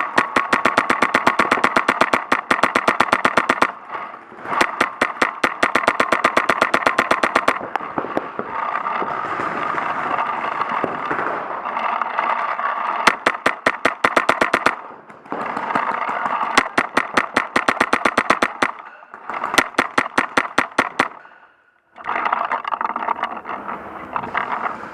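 Paintball marker firing in long rapid strings of shots, several strings in a row with short breaks between them, over a steady pitched whine.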